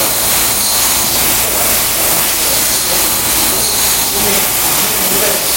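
E-Chung ERAW-60 automatic ampoule washing machine running, giving a loud, steady hiss of its washing jets.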